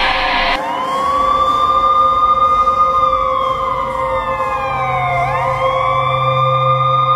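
Police car siren wailing slowly: the pitch rises, holds high for a couple of seconds, slides down, and rises again about two-thirds of the way through. A steady lower tone and, from about two-thirds in, a low hum run under it.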